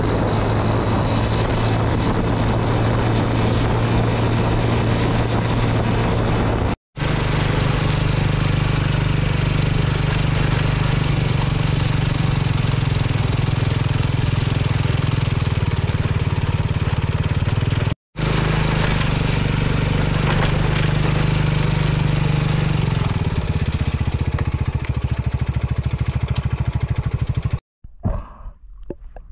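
Motorcycle engine running with wind noise on the rider's camera, a steady low engine note that drops away about two-thirds through. The sound cuts out briefly twice, and near the end gives way to quieter, muffled underwater sounds.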